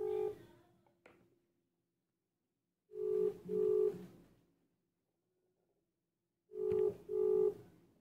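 Outgoing WhatsApp call ringing tone heard over a phone speaker: pairs of short 'ring-ring' beeps repeating about every three and a half seconds while the call waits to be answered.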